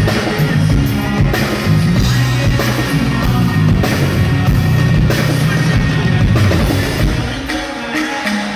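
A live band plays loudly through the stage PA, with drum kit, bass and electric guitars. The deep bass drops away about three quarters of the way through.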